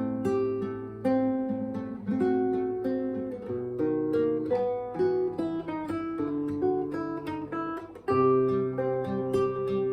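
Acoustic guitar playing a song instrumentally: chords struck about once a second and left to ring over held bass notes.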